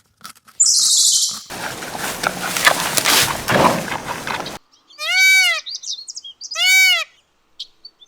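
Animal sounds in a row: a short high hiss, a few seconds of noise, then two short arched calls, each rising and falling in pitch, about a second and a half apart.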